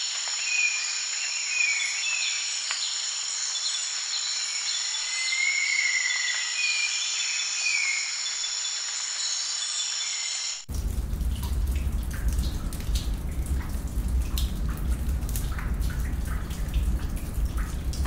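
Jungle ambience: birds calling in short gliding calls over a steady high drone. About ten seconds in it cuts abruptly to a deep rumble with crackling.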